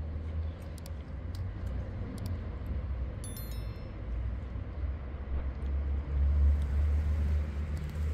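Low, uneven rumble on the microphone that swells near the end, with a few faint clicks early on. About three seconds in comes a short, bright chime: the bell sound effect of a subscribe-button animation.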